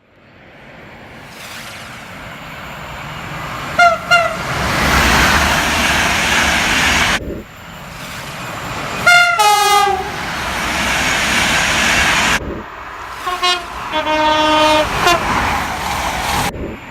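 Three trains passing in quick succession, cut one after another, each approaching with a rising rumble and sounding its horn. There are two short blasts about four seconds in, a blast that steps from a high note down to a lower one near nine seconds, and several stepped high-low blasts toward the end.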